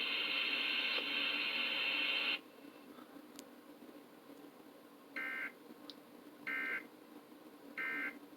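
A steady, hissy broadcast sound that cuts off suddenly about two and a half seconds in, then three short two-tone data chirps of an Emergency Alert System end-of-message code, evenly spaced a little over a second apart, signalling the end of the alert.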